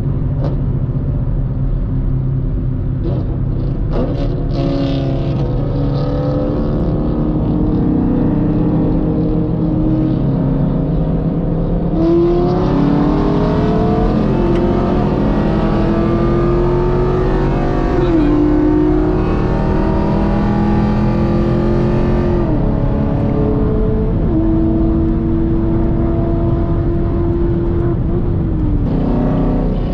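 Car engine pulling hard under acceleration, heard from inside the cabin. Its note climbs and then drops in steps at each upshift, four times in the second half. Steady road and wind noise runs underneath.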